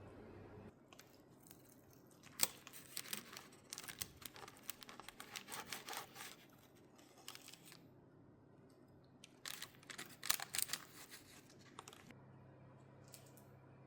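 Two bursts of crackling, tearing handling noise, like paper or material being torn, cut or crumpled close to the microphone. A low steady hum stops under a second in and comes back near the end.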